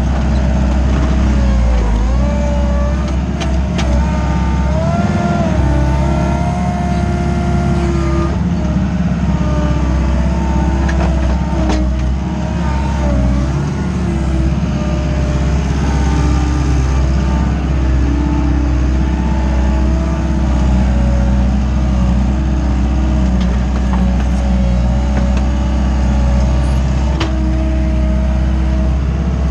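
Wacker Neuson 901s skid-steer loader's 50 kW diesel engine running steadily under load, heard from inside the cab, with a whine that rises and falls in pitch as the loader works the dirt. A few short knocks and clanks come through.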